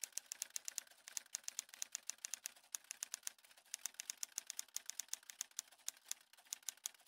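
Typing sound effect: a fast, uneven run of sharp key clicks, about eight a second, with a short pause about six seconds in.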